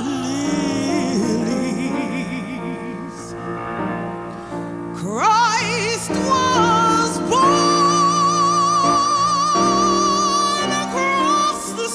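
Music: a singer with wide vibrato over sustained instrumental accompaniment, holding one long high note in the second half.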